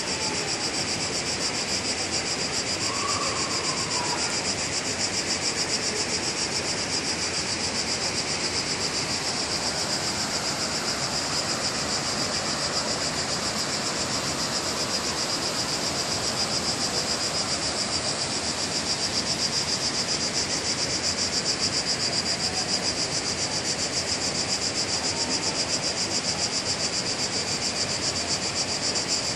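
Cicadas in the trees droning continuously, a loud high-pitched fast-pulsing buzz, over a steady rush of flowing river water.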